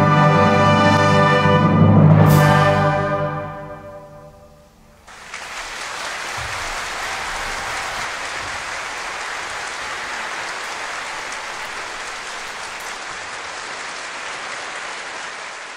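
A wind orchestra holds a loud final chord, struck with a sharp accent about two seconds in, that dies away by about four seconds in. A large audience then breaks into steady applause.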